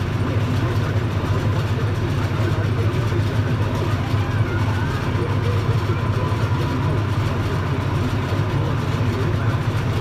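Case IH 7120 Magnum tractor's six-cylinder diesel running steadily while pulling and driving a New Holland 660 round baler through a hay windrow, a constant low drone mixed with the baler's machinery.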